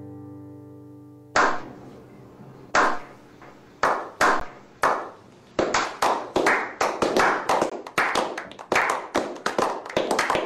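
Slow clap: single hand claps about a second apart that quicken into steady applause from a small group. It opens on the last of a plucked banjo-like chord ringing out.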